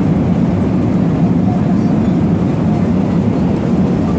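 Airliner cabin noise: a steady low rumble of engines and airflow heard from a seat inside the cabin.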